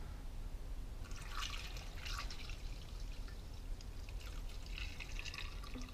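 Fuel poured from a plastic container through a funnel into a small chainsaw's fuel tank: a faint trickle, with louder spells of splashing about a second in and again around five seconds in.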